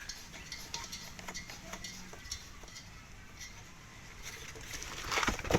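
Light clicks and scrapes of a manifold-gauge charging hose being fitted onto a refrigerant (freon) tank, with a short louder rustle near the end.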